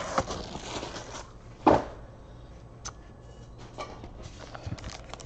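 Light handling of trading card packaging on a table, with one sharp knock about a second and a half in and a few small clicks.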